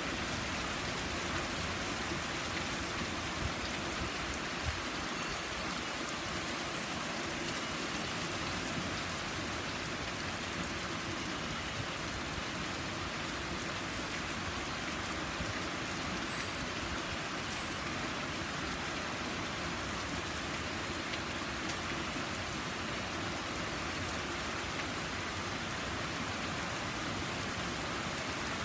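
Steady heavy rain falling on a lawn, garden and wet wooden deck, an even wash of sound with a few slightly louder drops now and then.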